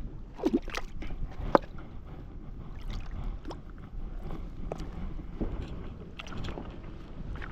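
Wind buffeting the microphone as a steady low rumble, with scattered light clicks and knocks; a sharp knock about one and a half seconds in is the loudest.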